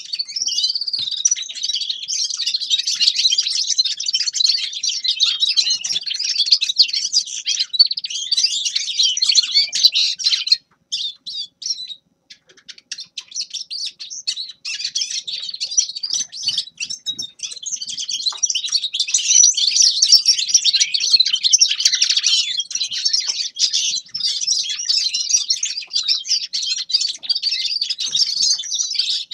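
Grey-crowned goldfinch singing a long, rapid twittering song, with a brief pause about ten seconds in before it carries on.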